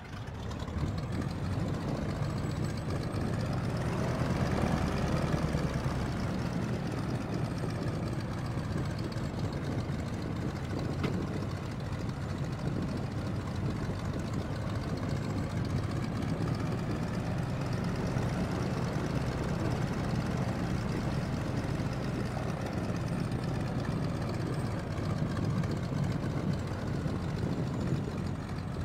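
Light aircraft's propeller engine running steadily at low power, heard from on board. It comes up sharply about half a second in.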